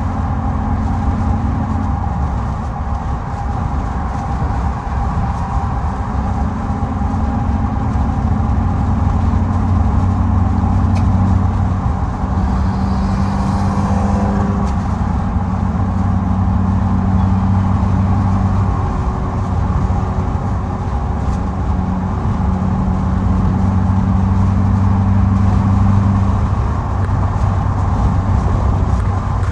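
Car engine and road noise heard from inside the cabin while driving: a steady drone whose pitch shifts slightly now and then.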